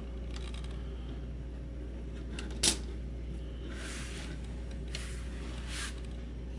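Hands handling a plastic Transformers Astrotrain action figure as its gun is fitted into its hand, with one sharp plastic click about two and a half seconds in, then soft rubbing of fingers on plastic.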